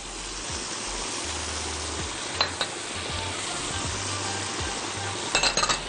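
Chicken strips sizzling steadily in a very hot frying pan as spices are sprinkled over them, the high-heat sear wanted for fajita. A couple of light clicks about halfway through and a quick run of clicks near the end.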